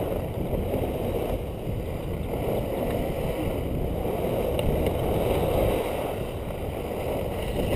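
Steady rush of wind buffeting a GoPro Hero2's microphone, mixed with skis running over groomed snow.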